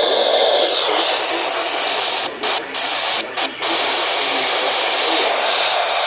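Weather radio receiver playing loud, steady static hiss, with four brief dropouts about two and a half to three and a half seconds in.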